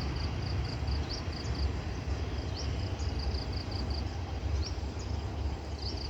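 Steady low rumble, with an animal's high chirping call repeating faintly over it every second or two: a short pulsed trill and a quick rising note.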